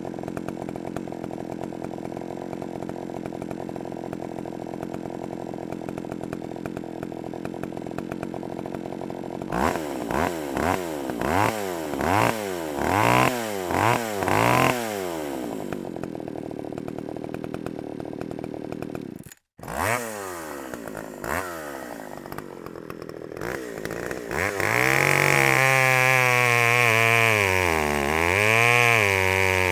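Chainsaw running steadily at low speed, then revved up and let fall back about six times in quick succession. After a brief cut it runs low again with a few short blips, then is held at high revs with a wavering pitch.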